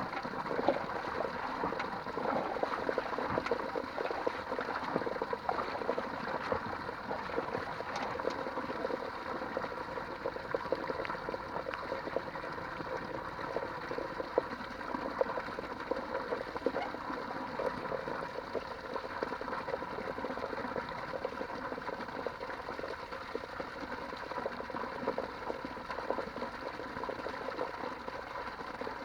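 Water running and splashing steadily, with many small splashes.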